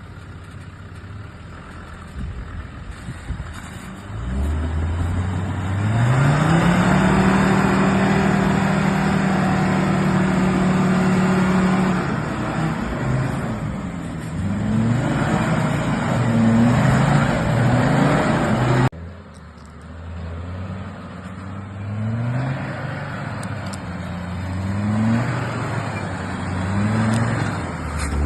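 Off-road 4x4's engine revving hard. It climbs about four seconds in to a held high rev, then goes into a string of short rising revs. The sound breaks off abruptly about halfway through and the revving picks up again.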